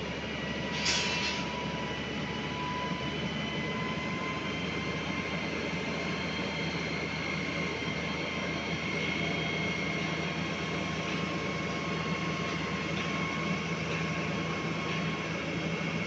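SANY truck-mounted concrete boom pump running, its engine and hydraulics giving a steady drone with a high steady whine over it. A short hiss comes about a second in.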